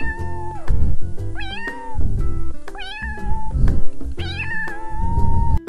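A domestic cat meowing four times, about a second and a half apart, the last meow drawn out longest, over background music.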